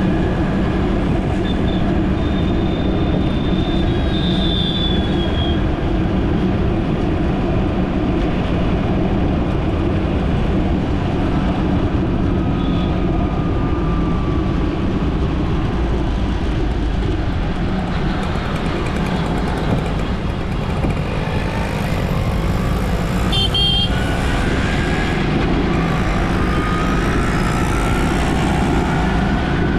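Steady rumble of engine and road noise from driving through city traffic, with a brief high horn beep about three-quarters of the way through.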